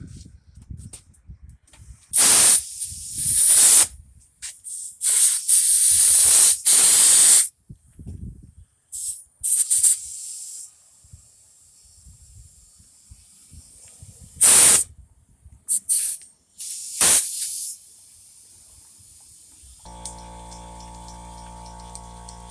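Compressed air hissing in repeated bursts of one to two seconds each, several of them loud. A steady hum sets in near the end.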